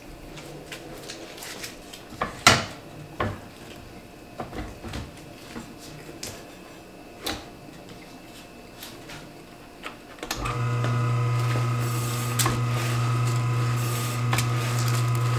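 Knocks and clicks as a hard salami is handled and set on the carriage of a Beswood 250 electric deli meat slicer. About ten seconds in, the slicer's motor switches on and runs with a steady hum while it slices the salami.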